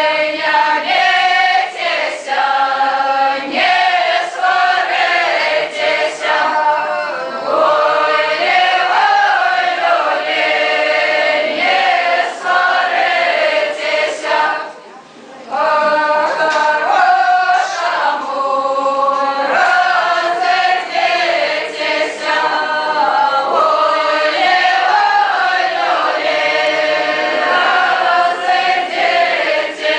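A group of voices sings a Belarusian spring round-dance (karahod) folk song without accompaniment, line after line, with one short break about halfway through.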